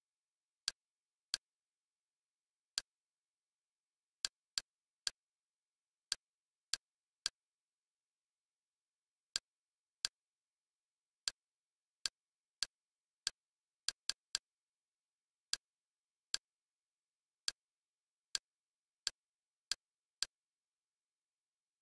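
Short, sharp clicks of the Kodi menu's navigation sound, one for each step through the menu, about two dozen at uneven intervals with dead silence between, sometimes two or three in quick succession.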